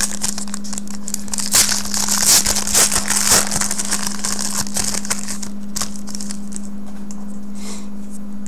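Foil trading-card pack wrapper crinkling and crackling as it is torn open and handled, busiest in the first half. A steady low electrical hum runs under it.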